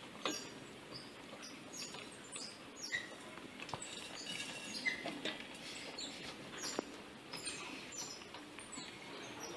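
Spoon scraping and knocking against the inside of a stainless steel pot while cooked sago with sugar is stirred, heard as faint, irregular clicks and scrapes.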